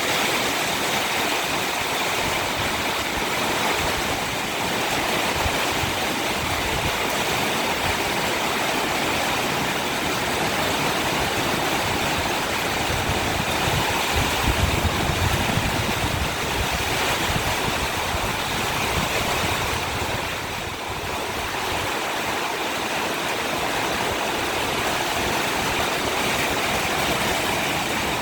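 Storm of heavy rain and wind: a steady, loud rushing hiss, with irregular low rumbling from gusts buffeting the microphone that peaks about halfway through.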